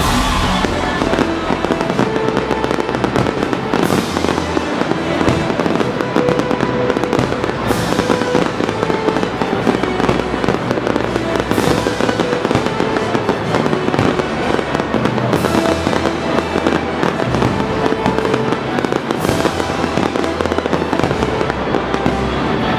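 Fireworks display going off in a nonstop barrage of bangs and crackling, with music playing alongside.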